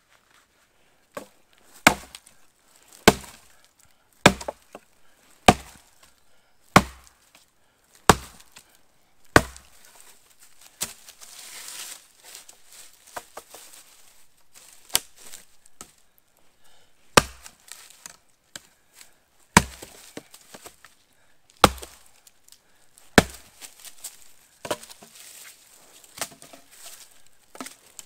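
Small forest axe chopping firewood. Seven heavy, evenly spaced strokes come about one every second and a quarter, then a short rough stretch of splitting and further irregular strokes.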